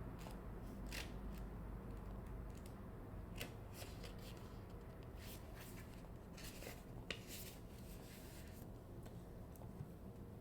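Faint scattered clicks and rustles of tarot cards being handled, with short clusters of snaps around the middle of the stretch.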